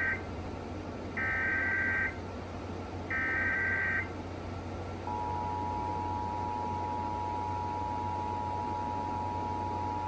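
Emergency Alert System SAME header sent out by a Sage EAS ENDEC. The end of the first of three harsh digital data bursts is followed by two more, each about a second long and a second apart. About five seconds in, the steady two-tone EAS attention signal starts, announcing that the relayed Flash Flood Warning message follows.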